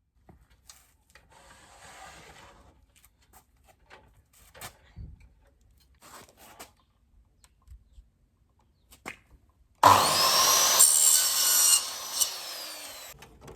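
Faint handling clicks and knocks, then about ten seconds in a power saw starts and cuts through a piece of wooden trim moulding for about two seconds, its whine falling away as the blade runs down.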